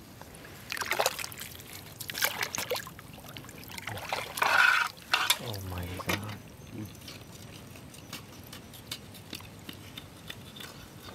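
Hand digging in wet mangrove mud and shallow water: irregular wet splashing and sloshing in the first half, the loudest splash about four and a half seconds in. After that there are only faint scattered clicks.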